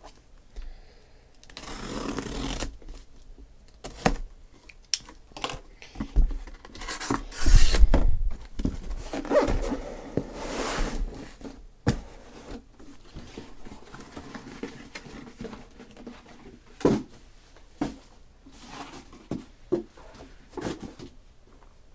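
Taped cardboard shipping case being opened: packing tape tearing off in several long rips, with cardboard flaps and boxes knocking and scraping as they are handled.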